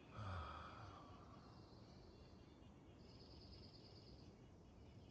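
Quiet outdoor ambience with faint distant birdsong, including a rapid high trill about three seconds in. A brief soft low sound comes just after the start.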